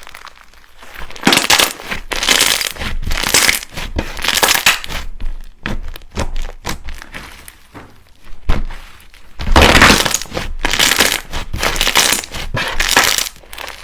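Slime being squeezed and pressed by hand, giving dense crackling and crunching clicks in two long loud spells with a quieter stretch of lighter crackles between them.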